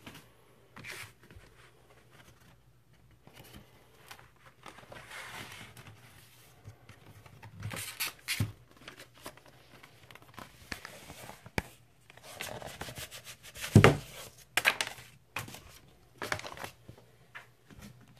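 Rustling, scraping and sliding of paper and cardboard as a vinyl LP is handled in its inner sleeve and record jacket, with scattered light taps and one sharp knock about three-quarters of the way through.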